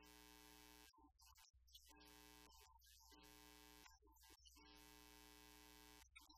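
Near silence: a faint electrical hum with a steady buzz that cuts in and out every second or so.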